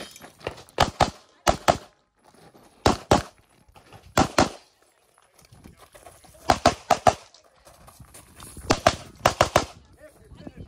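Walther PDP SF pistol fired in quick double taps, two shots about a fifth of a second apart, with a pause of a second or more between pairs, about seven pairs in all.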